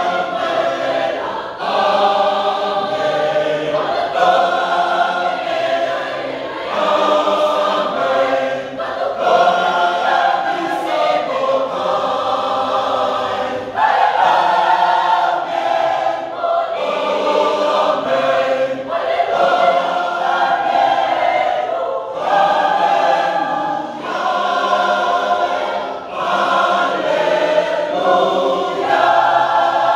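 Mixed choir of men's and women's voices singing a Fijian-language hymn in parts. It is sung in sustained phrases a few seconds long, with brief dips between them.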